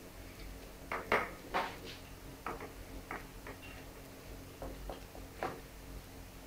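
Hands patting and pressing oiled dough logs on a metal baking tray: a string of irregular soft slaps and knocks, the loudest about a second in, over a faint steady hum.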